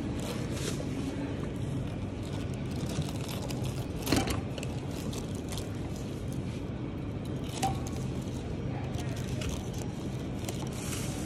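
Steady store background hum, with a few short knocks and rustles as groceries are handled and bagged at a self-checkout, the loudest about four seconds in and a brief beep-like tone near eight seconds.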